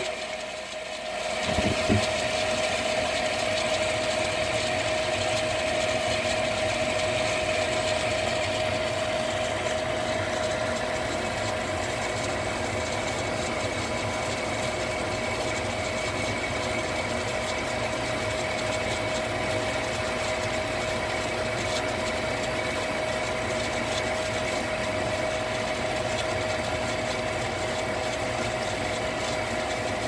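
Lennox gas furnace running with its burners lit: a steady mechanical hum carrying a constant tone. The sound dips for a moment at the start and there is a single click about two seconds in.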